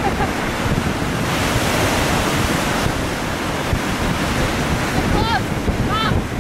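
Lake Michigan surf breaking steadily on the beach, with wind buffeting the microphone. Two brief voice sounds come near the end.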